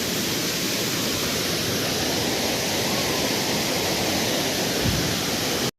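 Waterfall rushing: a steady roar of falling water that cuts off suddenly near the end.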